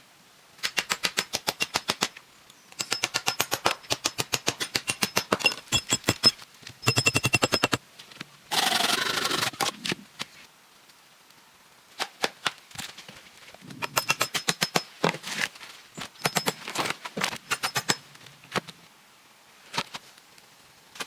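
Rapid knocking: bursts of sharp knocks at about nine a second, each burst lasting one to three seconds, with pauses between. The knocks ring with a faint high tone. About eight and a half seconds in, a noisier rasp lasts about a second and a half.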